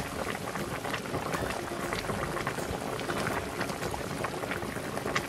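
Cola braising liquid boiling hard around beef ribs in a large wok over high heat: a steady bubbling full of small irregular pops.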